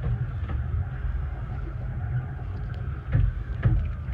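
Steady rumble of a 15-inch gauge railway carriage running along the track, heard from inside its rear compartment, with two louder knocks about half a second apart near the end.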